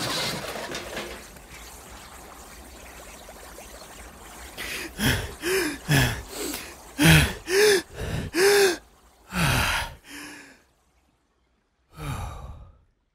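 A loud noise fading away in the first second or so, then a run of about ten short gasping breaths from a person, each rising and falling in pitch, the last one after a pause near the end.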